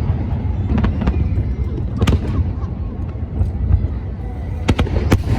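Aerial fireworks going off: a few sharp bangs, the last two close together near the end, over a steady low rumble.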